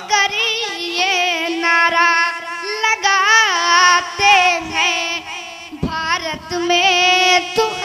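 A boy singing a line of an Urdu naat solo into a microphone, in a high voice whose melody wavers and swoops with ornaments.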